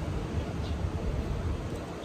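Wind buffeting the microphone as an uneven low rumble over a steady outdoor hiss.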